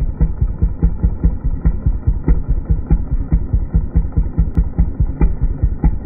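An engine idling with a slow, slightly uneven pulsing beat, about three to four beats a second.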